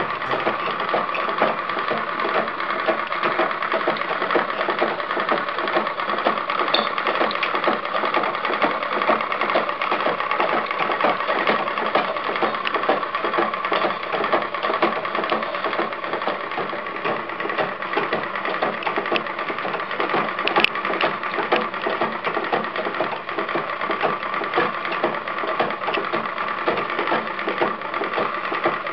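1919 Singer No. 15 sewing machine running steadily while driving an antique German spinning wheel head: a fast, even mechanical clatter of fine ticks. There is one sharp click about two-thirds of the way through.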